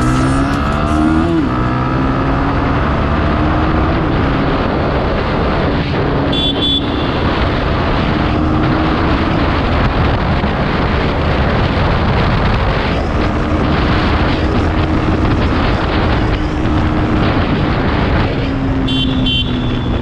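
Single-cylinder motorcycle engine running on the road, rising in pitch for about a second, dropping with a gear change, then holding steady over a continuous rushing noise. Two short high-pitched tones come about six and nineteen seconds in.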